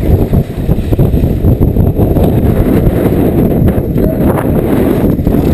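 Strong wind, 20 to 30 knots, buffeting the microphone aboard a heeled sailboat: a loud, steady, rumbling rush without a pitch.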